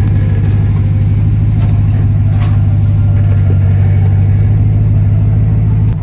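Supercharged V8 of a RAM TRX off-road truck running steadily, a deep, even engine drone.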